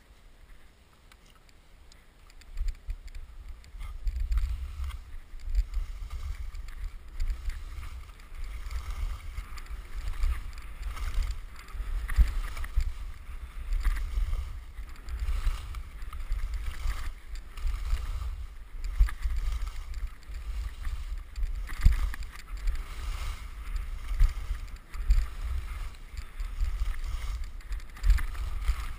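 Skis sliding and scraping over packed snow at speed, with gusty wind rumble on the microphone that starts about two and a half seconds in and keeps rising and falling.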